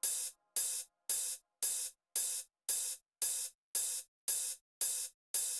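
Open hi-hat sample from an FL Studio drum pattern playing on its own, one crisp hit with a short hissing decay about every half second in a steady loop.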